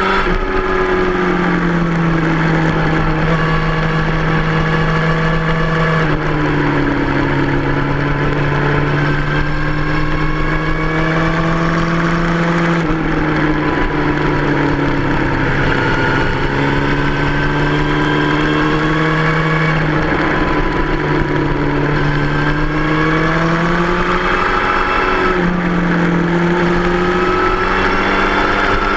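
2003 Yamaha R1's 998 cc inline-four engine running hard at track speed, its pitch climbing and falling with the throttle and stepping sharply at gear changes several times, over steady wind rush.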